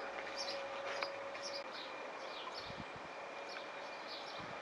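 A small bird chirping over and over, about two short falling chirps a second, with a few soft low thumps in the middle and near the end.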